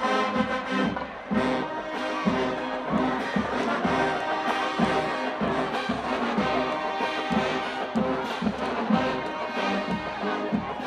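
Marching band playing a brass-led piece, trombones and trumpets over a steady drum beat.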